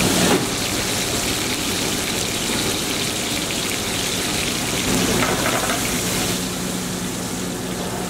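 Chicken strips sizzling in butter oil in an aluminium sauté pan over a gas burner: a steady hiss, with a low steady hum underneath.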